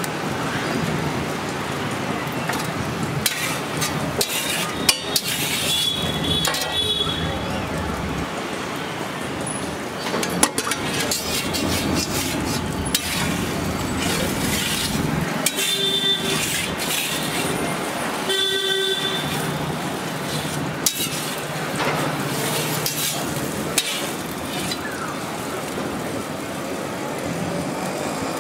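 Street traffic with vehicle horns honking, two clear honks just past the middle, over a steady sizzle from an egg omelette cooking on a flat iron griddle. Now and then comes a sharp clink of a metal spatula.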